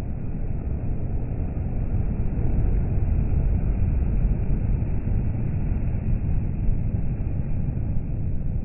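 DAF XF articulated lorry passing at motorway speed: a steady low rumble of tyres and engine, swelling slightly as it comes closest a few seconds in.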